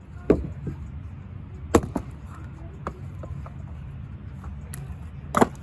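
Wood being chopped: three sharp strikes, about a second and a half and then three and a half seconds apart, with a few lighter knocks between, over a steady low rumble.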